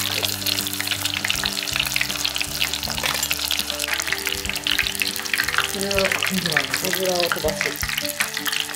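Breaded kushikatsu skewers deep-frying in a pot of hot oil: a dense, steady crackling sizzle.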